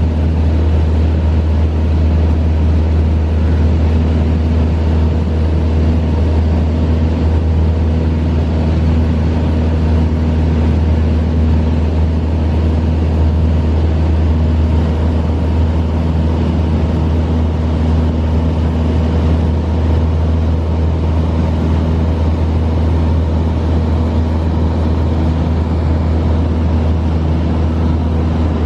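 Steady drone of a small propeller plane's engine and propeller, heard inside the cabin in flight: a deep, even hum with a few steady tones above it and a constant rush of noise, unchanging throughout.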